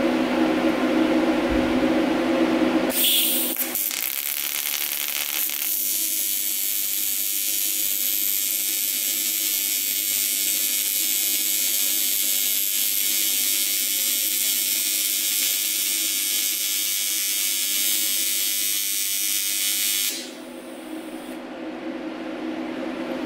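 AC TIG welding arc on aluminium buzzing steadily for about seventeen seconds while a tack weld is laid with filler rod, striking about three seconds in and cutting off suddenly near the end. A steady low hum runs underneath.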